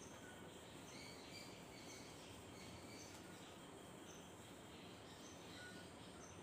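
Near silence: faint room tone with a few scattered, faint, short high chirps.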